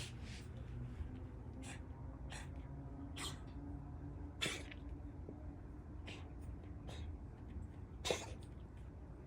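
Bengal cat coughing in a series of short, sharp hacks, about eight of them spaced a second or so apart, the loudest near the end.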